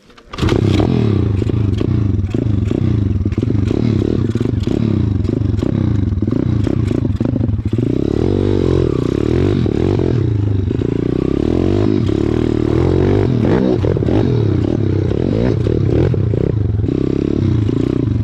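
Pit bike's small single-cylinder engine running under load while ridden on a dirt track, its pitch rising and falling with the throttle and gear changes. It sounds muffled, with little above a low drone.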